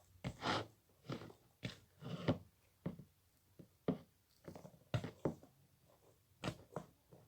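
Fluffy slime being squeezed and pulled in the hands: short, irregular wet squelches and small crackles, about fifteen in a row.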